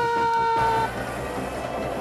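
A vehicle horn blast: it swells up in pitch into a steady blare and cuts off suddenly within the first second, leaving quieter background music.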